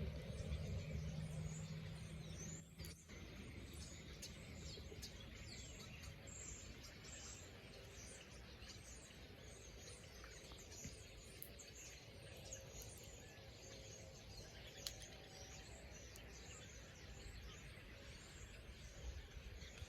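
Faint chorus of many birds chirping and calling from a large flock in a field, over a low, steady rumble of distant highway traffic.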